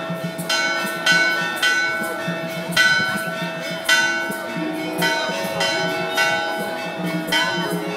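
Church bells ringing in a steady rhythm, struck about twice a second, each strike ringing on into the next.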